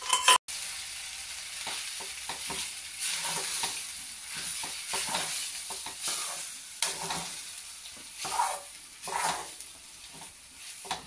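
Metal spoon stirring and scraping cooked broken wheat around an aluminium kadai, in irregular strokes about once a second, over a steady frying hiss. A couple of loud knocks against the pan at the very start.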